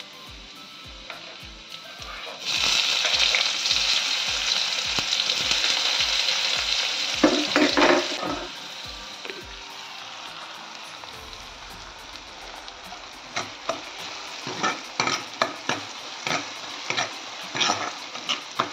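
Chopped onion and garlic hitting hot oil and seeds in an iron kadhai: a loud sizzle starts about two and a half seconds in and eases to a softer steady frying sizzle after about eight seconds. In the last few seconds a metal ladle scrapes and taps against the iron pan as the onion is stirred.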